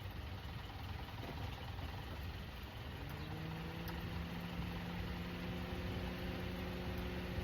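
A steady low mechanical rumble; about three seconds in, a motor spins up with a rising hum that settles into a steady tone.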